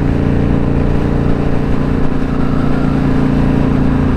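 2017 Indian Scout Bobber's liquid-cooled V-twin running steadily at highway cruising speed, heard from the rider's seat with wind rush over the microphone.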